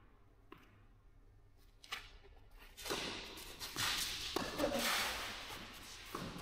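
Tennis play on a clay court: a few sharp ball strikes or bounces, then from about three seconds in a stretch of shoes scuffing and sliding on the clay, with more knocks mixed in.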